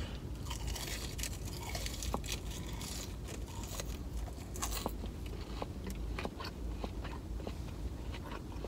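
Biting into and chewing thick, hard, seasoned french fries: a string of crisp crunches and small crackles, densest in the first few seconds and thinning to scattered clicks as the chewing goes on.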